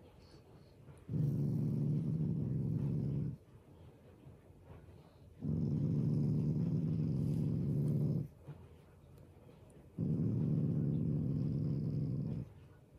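Black Shiba Inu growling low, three long growls of about two to three seconds each with short pauses between, as a hand pets its head. It is the dog's habitual affectionate grumble, not an angry one.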